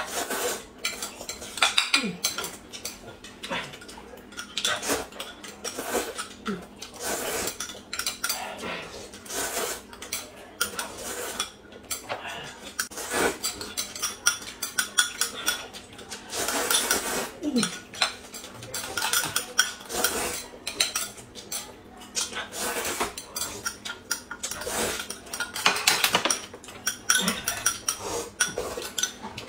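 Metal spoons clinking and scraping against small glass cups of corn soup, with repeated slurping of soup and noodles.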